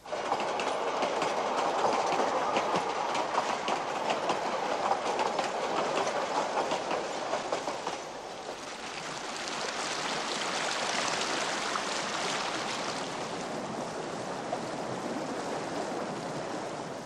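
White Pass & Yukon Route narrow-gauge train running on the track, its wheels clicking over the rail joints. About eight seconds in this gives way to the steady rush of river rapids.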